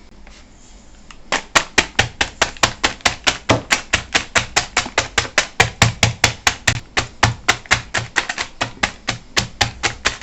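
Crab claws and legs in a plastic bag being pounded to crack the shells: a fast, even run of hard knocks, about five a second, starting a second or so in.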